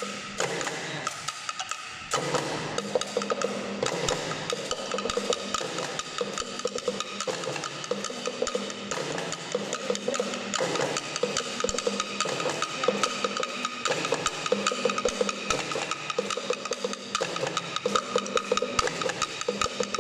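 Bamboo percussion ensemble: hollow bamboo tubes struck with wooden sticks, with other tuned bamboo tubes played along, in a dense, steady interlocking rhythm of ringing, pitched wooden knocks. The playing thins briefly about a second in, then picks up fully again.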